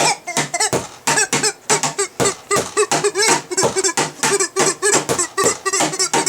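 Squeaky back scratcher played as a rhythm instrument: short squeaks that bend up and down in pitch, several a second in a fast, even pattern, each struck with a sharp click.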